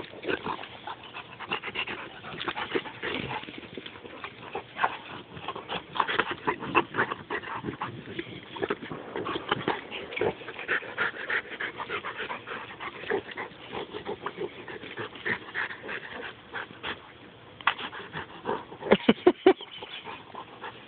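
A pit bull and a St. Bernard play-wrestling: dog breathing with irregular short mouth and scuffling noises throughout, and a cluster of louder sounds near the end.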